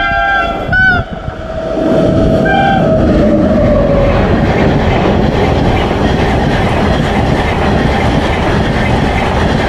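Train locomotive horn sounding three short blasts in the first three seconds. A train then passes close by with a loud, steady rumble and clickety-clack of wheels on the rails.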